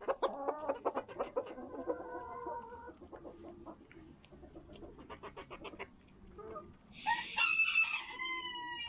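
Domestic chickens at feed: hens clucking over many sharp pecking taps, then a rooster crows about seven seconds in, a call of about two seconds that falls in pitch at its end.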